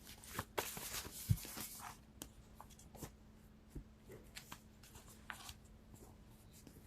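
Tarot cards being shuffled and handled: soft rustling and scattered light taps, busiest for about the first two seconds, then thinning to a few faint clicks.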